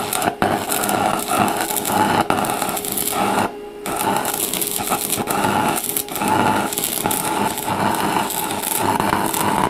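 Electric arc of an inverter stick (MMA) welder crackling steadily as the electrode is run on thin steel sheet, stopping briefly about three and a half seconds in and then struck again. The current is set above mid-range, hot enough to burn holes through the thin metal.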